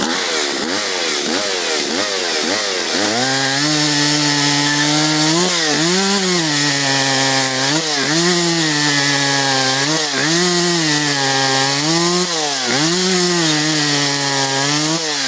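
Stihl MS 170 two-stroke chainsaw revved in quick blips. From about three seconds in it is cutting through wood, the engine held at a steady lower pitch under load and rising briefly every second or two.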